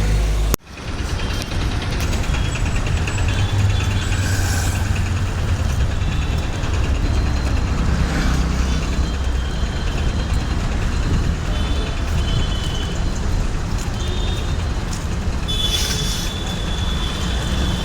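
City road traffic at a signal: engines of cars and heavy vehicles idling and moving off in a steady low rumble. The sound cuts out sharply for a moment just after the start, there are thin high whines now and then, and near the end a hiss with a high squeal, like air brakes.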